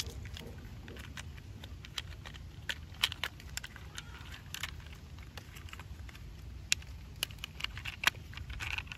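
Hard plastic toy truck parts clicking and knocking against each other as they are handled and snapped together by hand: irregular sharp clicks, a few louder ones about three seconds in and again near the end.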